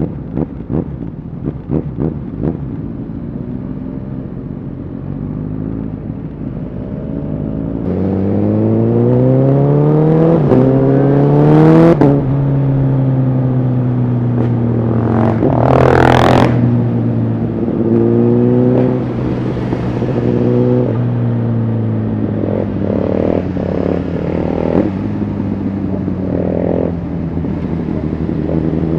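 Honda CBR1000RR Fireblade's inline-four engine through an aftermarket Shark Factory exhaust, heard from the rider's seat. It starts with a low, uneven rumble, then pulls hard from about eight seconds in, the pitch climbing with two quick upshifts, and settles into a steady cruise. Halfway through there is a brief loud rush, and the revs climb again near the end.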